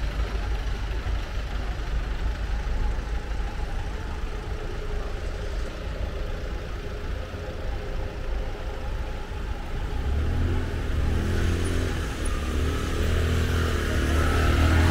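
Street traffic: a motor vehicle engine running close by, with a steady low rumble that grows louder from about ten seconds in.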